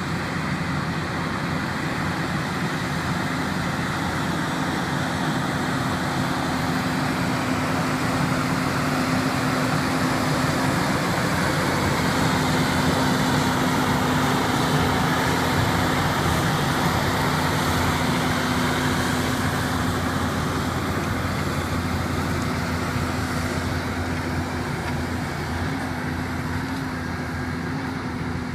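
Versatile 260 tractor engine running steadily under load while ploughing, with a constant low drone. It grows a little louder toward the middle and eases off again.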